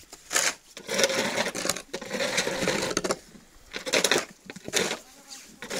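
Snow crunching and scraping in a run of uneven strokes, one long stroke about a second in and several shorter ones after.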